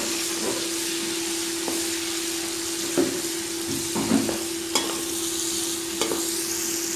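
Sliced onions sizzling in hot oil in an aluminium pot as they are browned, with a slotted metal spatula stirring them and knocking against the pot a few times.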